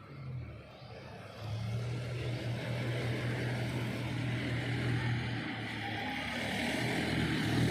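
An engine running steadily, a low even hum that comes up about a second and a half in.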